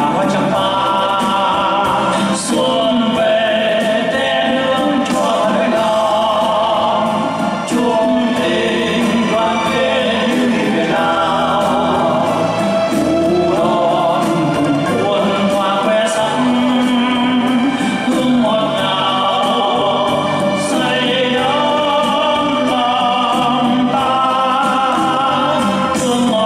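A man singing a Vietnamese song into a microphone, with instrumental accompaniment.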